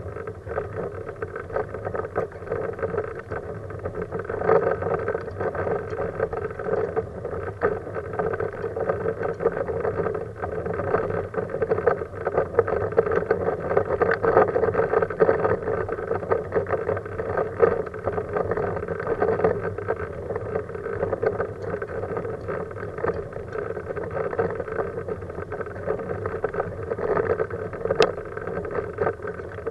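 Kuschall K-Series manual wheelchair with a Freewheel front-wheel attachment rolling along an asphalt road: steady rolling noise from the wheels on the road surface. A single sharp click comes near the end.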